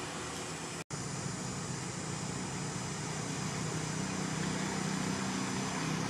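Steady outdoor background noise with a low hum and no animal calls, broken by an instant of silence about a second in.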